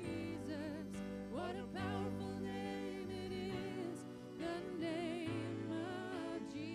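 Live church worship music: a band holding sustained bass and keyboard chords under a melody sung with vibrato, in a slow passage of a worship song.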